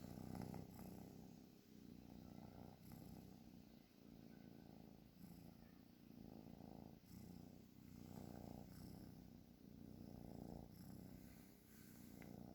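A cat snoring softly, a low rumble that swells and fades with each breath, about one breath every two seconds.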